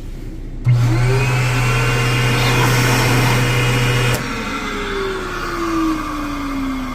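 Vacuum cleaner motor switched on about a second in, spinning up with a rising whine over a steady hum and running noisily. It is switched off about four seconds in, and the whine falls as the motor winds down.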